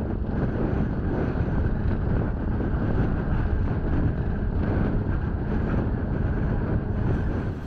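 Wind buffeting the microphone on a car ferry's open upper deck: a steady low rumbling noise, with the ship's own low rumble under it.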